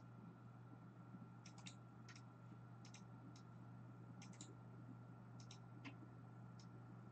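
Faint, scattered clicks of a computer mouse and keyboard in use, several coming in quick pairs or triples, over a low steady electrical hum.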